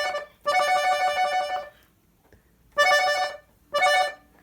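Accordion played to imitate a telephone ringing: repeated rings of rapidly trilled notes, with short gaps between rings and a longer pause about two seconds in.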